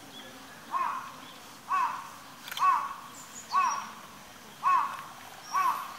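A bird calling six times, about once a second, each call rising and falling in pitch, with faint high chirps of small birds behind.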